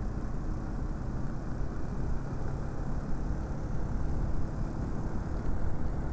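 Motorcycle engine running steadily while riding, mixed with wind rumble on the microphone.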